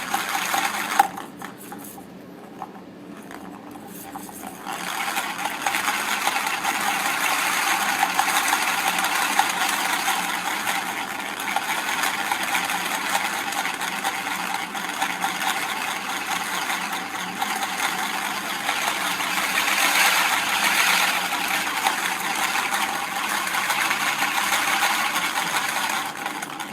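Plastic ball spun fast around the circular groove of a ball-in-track cat toy, a continuous rolling rattle made of rapid ticks. It is fainter at first, builds up about four to five seconds in, and is loudest around twenty seconds.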